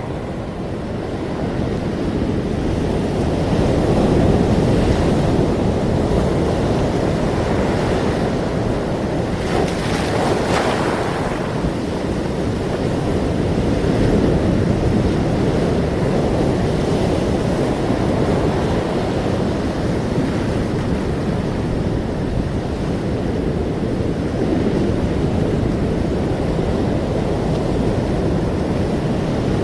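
Ocean surf: a steady rush of waves that swells and eases every few seconds, with a louder wave breaking about ten seconds in.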